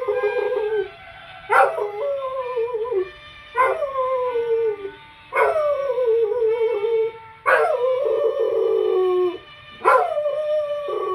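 Dog howling, a string of about five long howls roughly two seconds apart, each starting sharp and high and sliding down in pitch.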